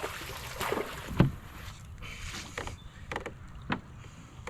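A few knocks and bumps on a plastic fishing kayak, the loudest a deep thump about a second in, over a steady low rumble.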